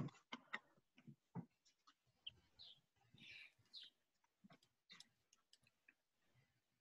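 Near silence: faint room tone with scattered soft clicks and ticks.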